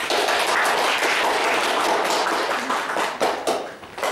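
Audience applauding, a dense crackle of many hands clapping that thins out and fades near the end.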